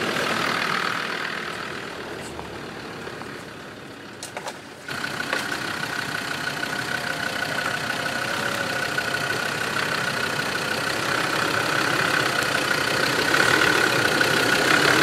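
Land Rover Defender Td5's five-cylinder turbodiesel engine working a slow climb up a rutted dirt track, growing louder as the vehicle approaches, with a steady high whine running through it.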